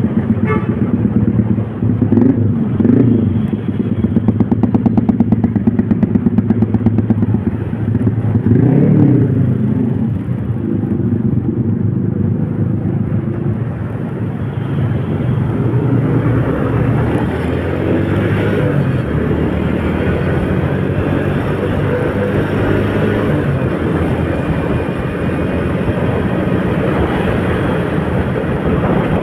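Motorcycle engine running while under way, loud and pulsing for the first ten seconds or so, then steadier. From about halfway a steady rushing noise of wind and heavy rain grows stronger.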